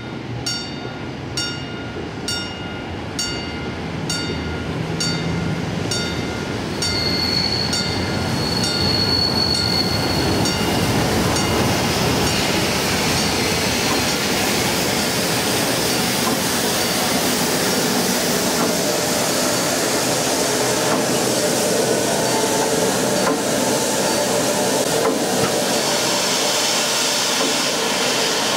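Class 50 2-10-0 steam locomotive 50 3552 running in with its train and passing close by, its rumble and hiss growing louder as it comes alongside. A bell strikes about twice a second, fading out about ten seconds in, and a high steady squeal sounds for a few seconds about seven seconds in.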